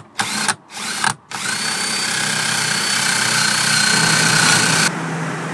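Cordless Ridgid drill with a step bit boring through a metal panel: a few short trigger pulses, then a steady run of the bit cutting with a high whine. Near the end the sound drops to a lower, steadier level.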